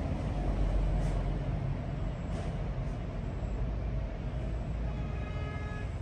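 Steady outdoor background noise with a low rumble, and a brief high pitched tone about five seconds in.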